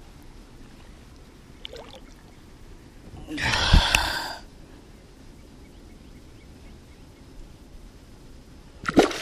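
Water splashing for about a second, roughly three seconds in, as a hand-held fish is dipped into shallow water; otherwise low outdoor background.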